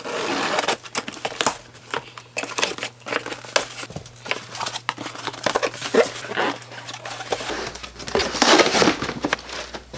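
A cardboard shipping box being opened by hand, its flaps and packing rustling and crinkling, with many small scrapes and knocks as a tight-fitting shoe box is worked out of it. The rustling is loudest near the start and again near the end.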